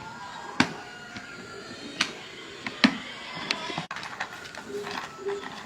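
Background music with a few sharp knocks or taps cutting through it, about four over the stretch.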